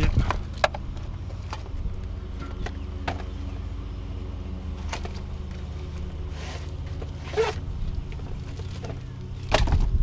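Scattered light knocks and clunks of a radiator being handled and set into a car's engine bay, over a steady low hum.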